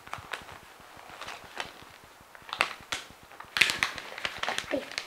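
Wrapping paper crinkling and rustling in irregular crackles as a present is unwrapped by hand, busiest a little past halfway.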